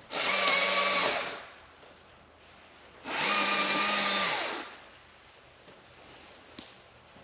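Stihl MSA 220 battery chainsaw triggered twice, its electric motor and chain whining up to speed and running at a steady pitch for about a second and then a second and a half, stopping between pulls with no idle.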